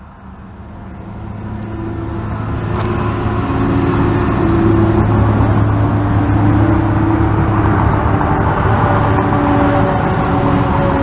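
Diesel-electric freight locomotive approaching with a container train: a deep engine drone growing louder over the first four seconds, then holding steady and close.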